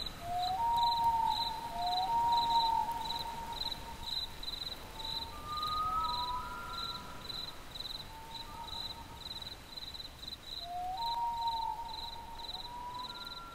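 Cricket-like chirping in a steady pulse, about three chirps a second, under soft tones that slide up and then hold, one after another, in the closing ambience of an electronic chillout piece.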